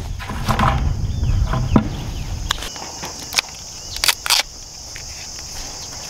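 Steady high-pitched chorus of insects singing. For the first couple of seconds a low rumble of wind on the microphone sits under it, and after that come a handful of sharp clicks and knocks from handling gear.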